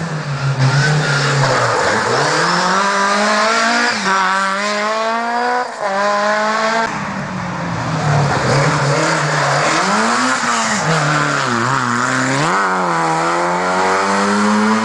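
Rally car engine revving hard: the revs climb in steps through a couple of gear changes, dip and waver around ten to twelve seconds in, then climb steadily again near the end.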